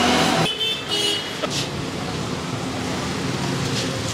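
Street traffic with a vehicle horn tooting briefly about half a second in, after a steady hiss cuts off; passing traffic hums on afterwards.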